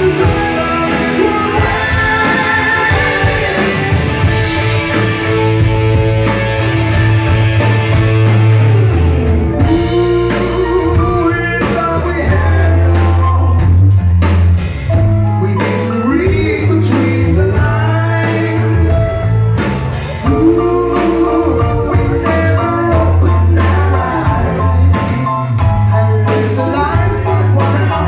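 Rock band playing live: a lead singer over electric guitars, keyboards, bass and drums, recorded loud from within the audience.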